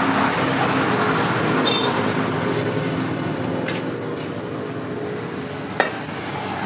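A steady motor drone with a low hum, and one sharp knock near the end.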